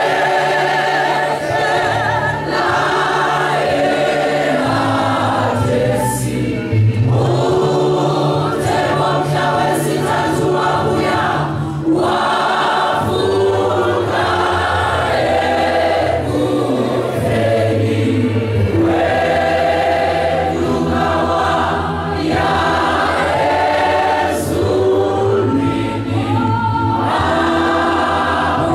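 A church congregation singing a hymn together in many voices, men's and women's, in phrases with short breaks between them.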